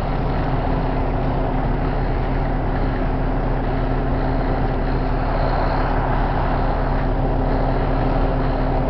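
A 1960s single-wide mobile home burning fully, giving a loud, steady rush of fire noise, with the even hum of an idling engine underneath.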